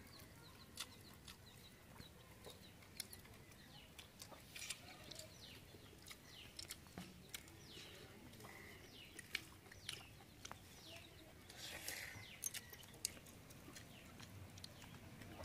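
Faint farmyard ambience: chickens clucking and short chirps scattered through, with soft little clicks.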